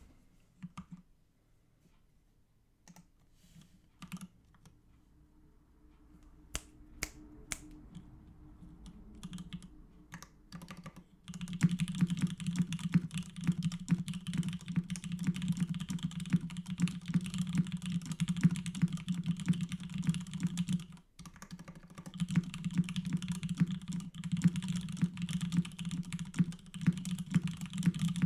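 Typing on a Duck Mini v1 mechanical keyboard fitted with lubed 65 g vintage Nixdorf black linear switches on an aluminium plate. A few scattered keystrokes come first, then steady fast typing, with one short pause about three-quarters through.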